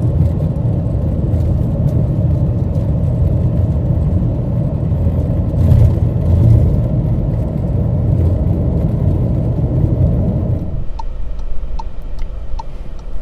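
Car driving at road speed, heard inside the cabin: a steady low rumble of tyres and engine. About two seconds before the end it drops suddenly to a quieter hum, with a few faint ticks.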